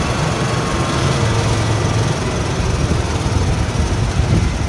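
Small petrol engine running steadily as a golf cart drives along.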